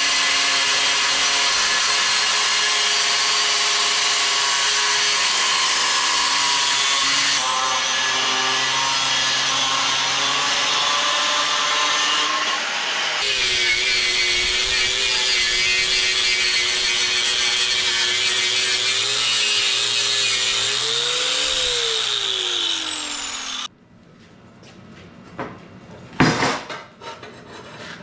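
Angle grinder cutting steel diamond plate: a loud, steady grinding over the motor's whine. Near the end the whine rises briefly as the disc comes off the metal, then falls away as it spins down, followed by a few light metal knocks.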